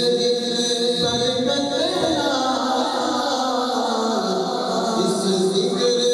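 Naat recitation: a voice chanting Punjabi devotional verse in long held notes that slide slowly up and down, over a steady sustained drone.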